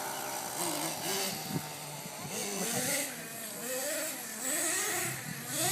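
The small nitro engine of a Redcat Racing Volcano S30 1/10-scale RC truck, buzzing as it revs up and down over and over as the truck is driven.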